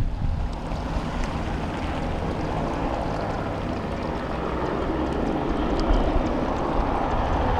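Bell 206B-3 JetRanger III helicopter in flight, its single turboshaft engine and rotor making a steady, even noise.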